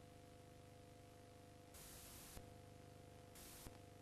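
Near silence: faint videotape playback hiss with a steady low hum. The hiss briefly grows brighter twice, about two seconds in and again near three and a half seconds.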